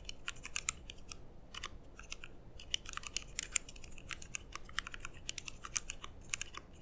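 Typing on a GMMK Compact mechanical keyboard fitted with lubed linear switches made from Halo housings and MX Red stems: a quick, irregular run of quiet, muted keystrokes.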